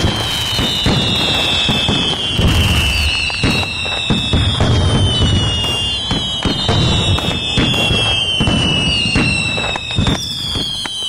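Fireworks going off in a dense barrage: constant crackling and popping over a low rumble, with several high whistling tones that slide slowly down in pitch and overlap, starting again every couple of seconds.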